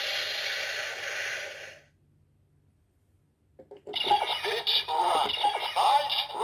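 Electronic music fades out, then after a short silence a few plastic clicks as a Progrise Key is slotted into a Bandai DX Zero-Two Driver toy belt, which then plays its recorded electronic voice and sound effects.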